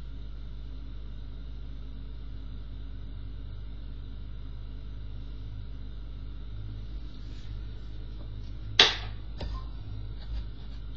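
A steady low hum, then about nine seconds in one sharp tap followed by a few softer clicks as tarot cards are handled and laid down.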